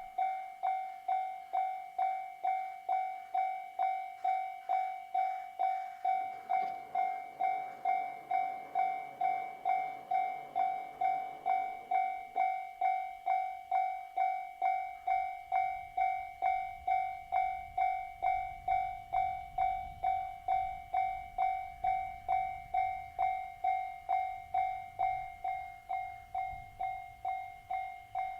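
Japanese level-crossing warning bell dinging steadily, about twice a second. A JR Hokkaido H100 diesel-electric railcar passes under it, its low rumble building from about halfway through.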